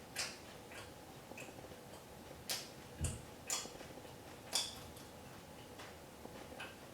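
A person chewing chocolate with peanuts in it: short, irregular crunches and mouth clicks, about ten over several seconds.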